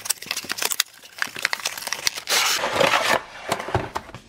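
A cardboard product box being opened and handled by hand: scattered small clicks and rustles of cardboard and packaging, with a longer scraping rustle just past the middle.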